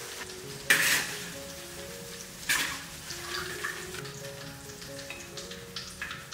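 Shrimp frying in hot oil in an iron wok, sizzling steadily while a metal spatula stirs them. There are two loud surges of sizzle, about a second in and again around two and a half seconds, under soft background music.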